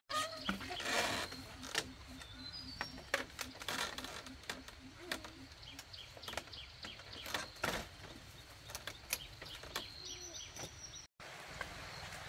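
Woven bamboo door and its bamboo frame knocking and rattling as it is pulled shut and fastened by hand, with birds chirping.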